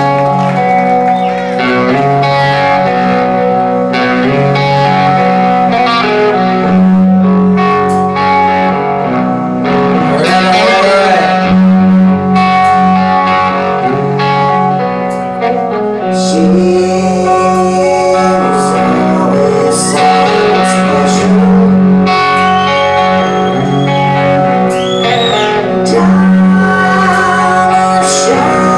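Hard rock band playing live, with electric guitar to the fore: sustained notes and chords, with a few bent notes about ten seconds in and again near the end.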